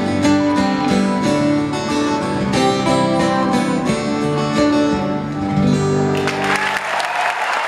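Two acoustic guitars playing the final strummed and picked chords of a song. The guitars stop about six seconds in, and an audience breaks into applause.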